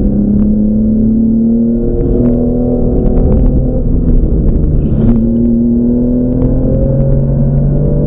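Porsche 911S air-cooled flat-six engine heard from inside the cabin under hard acceleration, its pitch rising through the revs and breaking off at gear changes about two seconds in and about five seconds in, then dropping near the end as the driver lifts. A few light knocks come through the car body.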